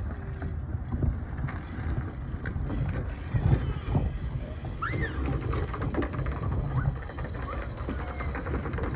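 Wind buffeting the microphone in a steady low rumble, with faint shouts and calls of children playing in the distance, one rising call about five seconds in.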